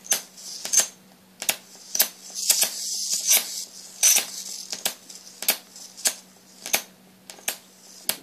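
ZVS-driven Jacob's ladder high-voltage arc running: a sharp snap about every two-thirds of a second as the arc breaks and restrikes at the base of the electrodes, with a hissing stretch of arc from about two to four seconds in. A steady low hum runs underneath.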